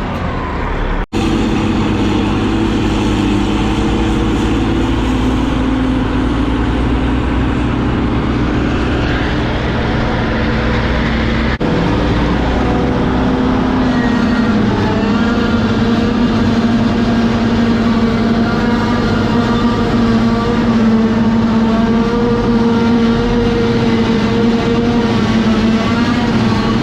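Heavy farm vehicle engine running steadily at working revs for the whole stretch, with a brief drop-out about a second in and a slight change in pitch about halfway through.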